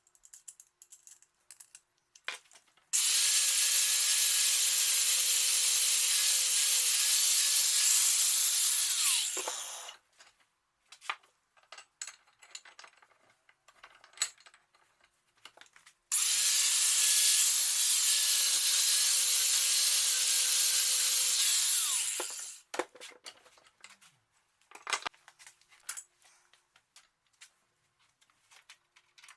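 A handheld electric power tool run twice, each time for about six or seven seconds with a steady whine over a loud hiss, winding down when released. Scattered clicks and knocks of handling come before, between and after the runs.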